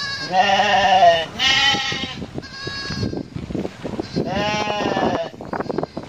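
Young goats bleating: four bleats of about half a second to a second each, the third fainter, with short clicks and knocks between them.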